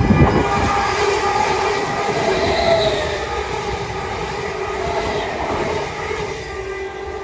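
Passenger train running loudly on the track: a heavy rumble at the start, then a steady hum with a brief squeal about three seconds in.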